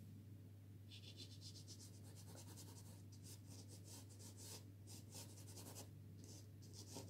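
Yellow soft pastel stick scratching across pastel card in a run of short, quick strokes, a faint dry scratching that starts about a second in and pauses briefly now and then.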